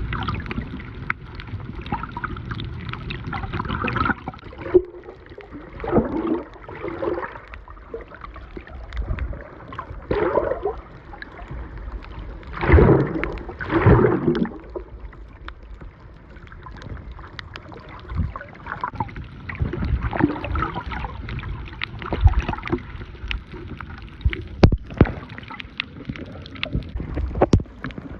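Water sloshing and gurgling around an underwater camera, coming in uneven swells (the two loudest about 13 and 14 seconds in), with scattered sharp clicks.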